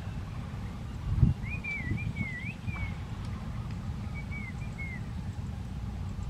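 A bird sings a warbling whistled phrase twice, over a steady low rumble, with one dull thump about a second in.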